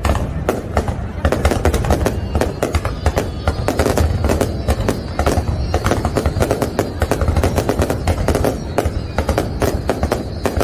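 Fireworks display in full barrage: a rapid, unbroken run of sharp bangs and crackles, many a second, over a continuous low rumble of booms.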